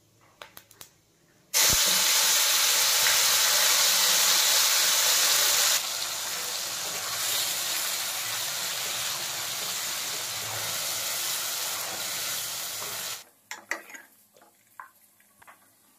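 Hot mustard oil sizzling in an iron kadhai as cumin seeds and ground onion-tomato paste fry. The sizzle starts suddenly about a second and a half in and is loud for a few seconds, then drops to a steadier, quieter sizzle that stops a few seconds before the end, followed by a few light clicks.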